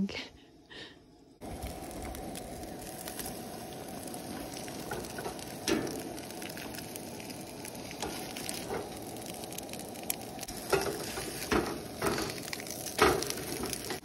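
Eggs sizzling in a frying pan on a Coleman propane camp stove, a steady frying hiss that starts about a second and a half in, with a few taps and scrapes of the spatula against the pan.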